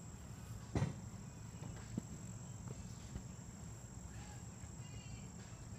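Faint outdoor ambience: a steady high-pitched insect drone, with a short knock just under a second in and a smaller tick at about two seconds.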